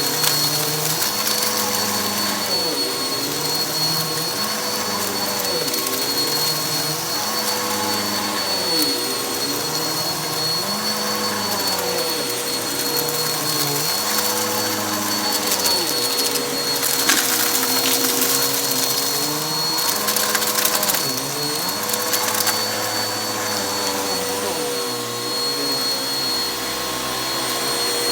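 Vacuum cleaner running over carpet with a steady motor whine, its sound rising and falling about every two seconds as it is pushed back and forth. There is a brief hissy, rattling stretch a little past halfway.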